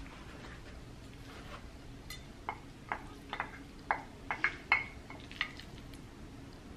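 Wooden chopsticks tapping and scraping against a glass food container: a scatter of light clinks starting about two and a half seconds in and lasting about three seconds.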